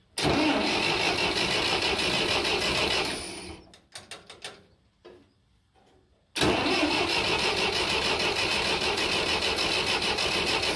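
Massey Ferguson 135's four-cylinder gasoline engine turned over by the starter in two long tries of about three and four seconds, separated by a short pause. It cranks without catching: the ignition gives no spark, which he traces to the distributor points having no gap.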